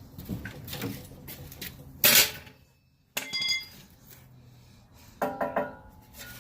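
Scattered knocks and clunks of equipment being handled, with a loud clunk about two seconds in and a short metallic ring just after three seconds. A brief pitched squeak near the end.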